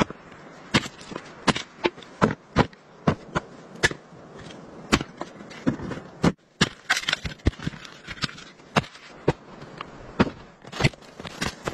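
Hatchet chopping firewood on a chopping block: a string of sharp wooden knocks, roughly two a second and somewhat irregular.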